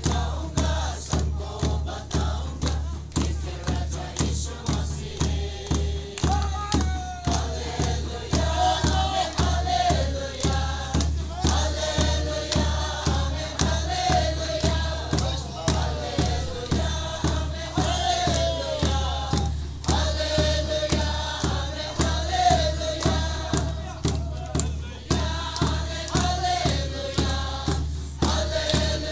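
A crowd singing a gospel song together, carried by a bass drum beaten steadily about twice a second, with hand clapping. The voices come through more strongly from about six seconds in.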